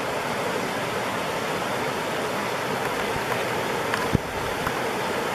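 Fast-flowing shallow river rushing over a gravel bed in rapids, a steady rush of water. A brief knock about four seconds in.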